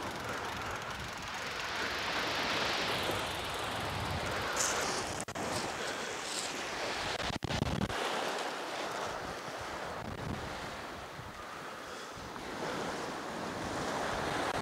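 Waves washing onto a shingle beach, the surf swelling and easing, with wind noise on the microphone.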